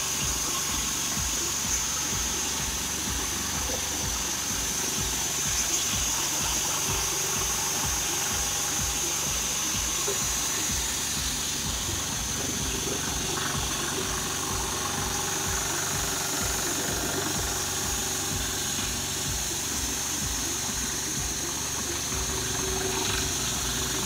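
Water jet from an electric pressure washer spraying onto an air conditioner's evaporator coil: a steady hiss of spray over the running pump, with a low pulsing about twice a second.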